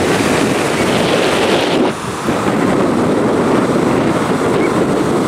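Wind buffeting the camera microphone over the rush of breaking surf, a steady loud noise with a brief lull about two seconds in.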